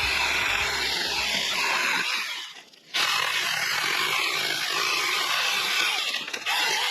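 Saker mini battery-powered chainsaw running and cutting through oak limbs. It stops briefly about two and a half seconds in, then runs again until just before the end.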